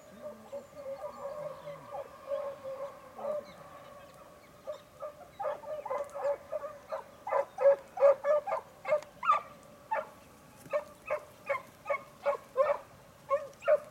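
Dogs giving tongue on the trail of a hare. A long, wavering drawn-out bay runs for the first few seconds, then short barks come about two a second, growing louder from about five seconds in.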